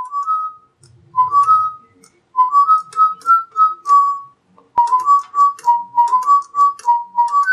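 Music: a simple tune of pure, whistle-like notes stepping up and down, with faint ticking above it and a single sharp click a little past halfway.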